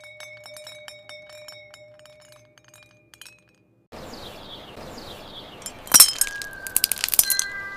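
Glass clinking and tinkling: many small taps with ringing tones for about three seconds. After a brief gap comes a hissy passage with a loud sharp glass crack about six seconds in, a quick run of clicks a second later, and ringing tones held near the end.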